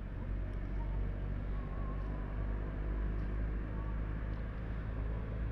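A small boat's engine running steadily, a low even hum.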